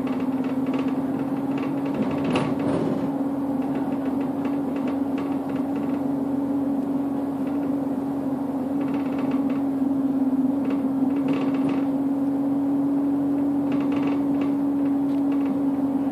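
Interior noise of a moving bus: a steady hum throughout, with occasional light rattles and knocks from the cabin.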